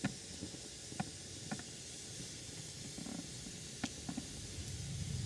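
Wood fire burning in a metal fire pan: scattered sharp pops and crackles over a soft hiss, with a low rumble building near the end.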